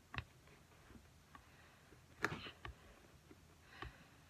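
A few faint taps and clicks from writing at a desk, the loudest about two seconds in.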